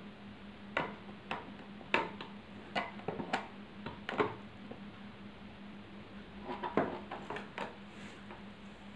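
Irregular clicks and taps of a clear plastic packaging box being handled and tilted, with a faint steady hum underneath.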